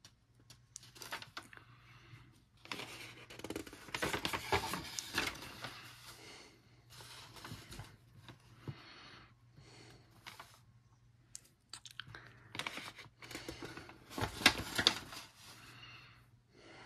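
Colouring-book pages being turned and handled: paper rustling and crinkling in two main bouts, about three seconds in and again around twelve seconds in, with sharp crackles and smaller rustles between.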